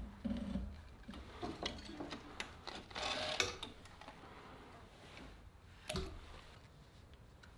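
Cobra Class 3 industrial leather sewing machine running for a short stitch near the start, then stopping; after that, quiet clicks and a short rustle as the stitched vegetable-tanned leather belt is drawn out from under the presser foot and the nylon thread is pulled free, with one sharp click near the end.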